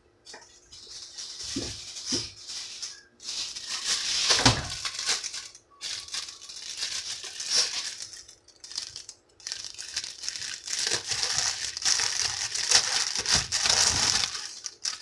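Dry fish-fry coating being shaken with the fish, a grainy rattling rustle that comes and goes in spells, with a few soft knocks.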